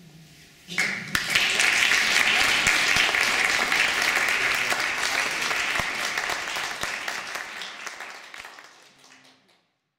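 Audience applauding: dense clapping breaks out suddenly about a second in, holds steady, then dies away toward the end.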